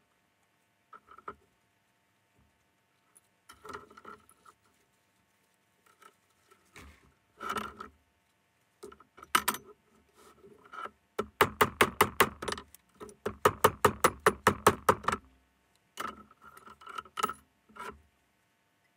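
Scattered metallic clinks of scrap copper and brass parts being handled on a steel workbench, then a fast, even run of light hammer taps on metal, about five or six a second for some four seconds, and a few more clinks near the end.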